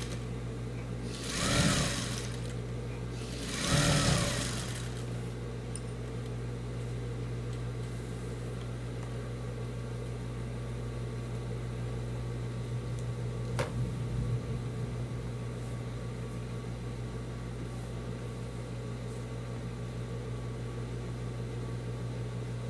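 Sewing machine stitching denim in two short bursts, about one and a half and four seconds in, each speeding up and slowing down, over a steady motor hum. A single sharp click a little past halfway.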